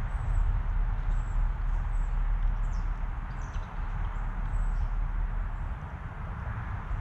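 Outdoor backyard ambience: a steady low rumble, with faint, very high, short bird chirps scattered throughout.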